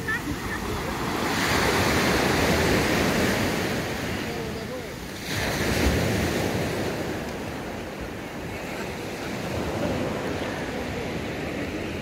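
Surf on a beach: small waves breaking and washing up the shore, swelling louder twice, with wind buffeting the microphone.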